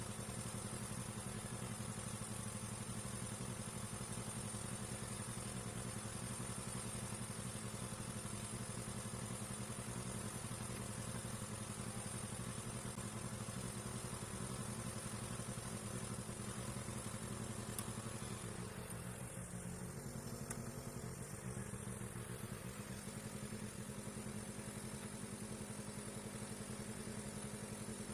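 Steady low engine hum at an even speed, unchanging throughout.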